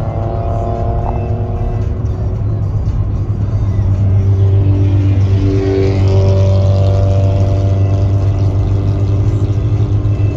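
Car cruising at highway speed, heard from inside the cabin: a steady low engine and road drone. About six seconds in, another car passes close alongside and the sound swells.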